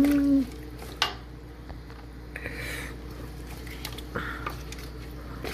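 A plastic spoon working a heap of fresh vegetables down into a large aluminium stockpot: a sharp knock against the pot about a second in, then soft shuffling and squishing of the vegetables, over a steady low hum.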